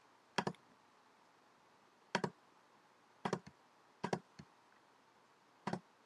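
Five faint computer mouse clicks at irregular intervals, each a quick paired tick of button press and release.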